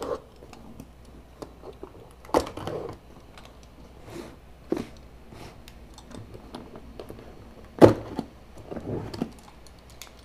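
Utility knife cutting the tape and seams of a cardboard box, with the box handled and turned over: scattered scrapes and small clicks, and two louder knocks, one about two seconds in and a louder one near eight seconds.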